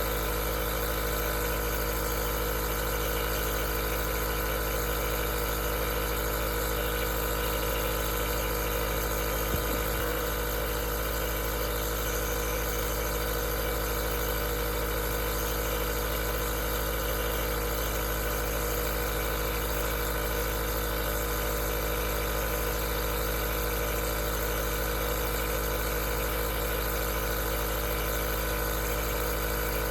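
Aerosol nebulizer's compressor running steadily, a constant motor hum over an even hiss, with one slight tick about ten seconds in.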